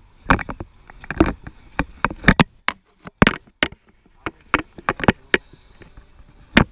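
Eyeglasses knocking against a head-mounted GoPro Hero 4 Silver camera: an irregular run of sharp, loud clicks and taps right at the microphone, in quick clusters of several a second.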